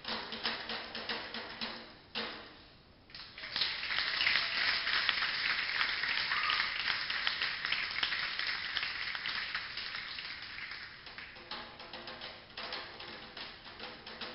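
Djembe hand drums being played. The rhythm breaks off about two seconds in, then a long, dense run of rapid, crackling strokes follows, and a steadier drum pattern returns near the end.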